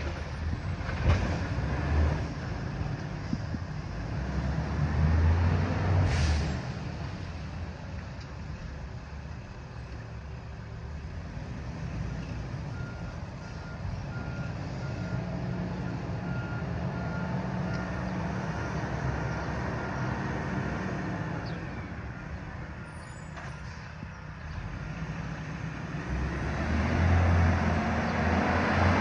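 Recycling truck's diesel engine running, with a short hiss of air about six seconds in. Midway its reversing alarm beeps about once a second for some nine seconds, and near the end the engine revs up louder.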